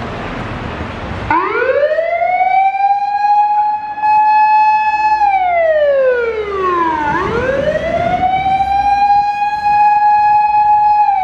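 Japanese fire engine siren sounding on an emergency run. About a second in it winds up to a long held high tone, glides down, then winds up again and holds. Road noise is heard before it starts.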